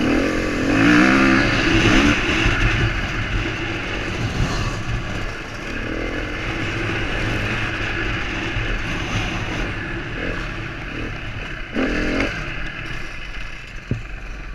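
KTM motocross bike's engine, heard from the bike itself, running under load and revving up and down through the gears. The revs climb hardest about a second in and again near the end.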